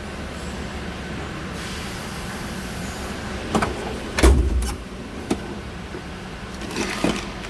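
Metal tool box drawers being handled: a sliding hiss, then a run of clicks and knocks with one heavy thud about four seconds in, as a drawer shuts. A steady low hum runs underneath.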